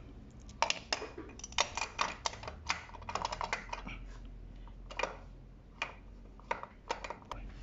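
Irregular light clicks and taps of a new aluminium oil pump being slid over the crankshaft snout and turned into place against a cast-iron engine block, coming in small clusters.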